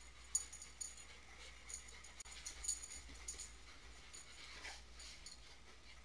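Faint jingling of dogs' metal ID tags with light clicks as two wet dogs, a Siberian husky and an Alaskan malamute, move about, most active in the first four seconds; a short falling squeak comes near the end.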